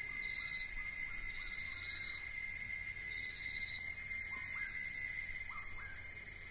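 A steady, high insect-like trilling with a thin steady tone beneath it. Short upward chirps come at irregular intervals, more often in the second half.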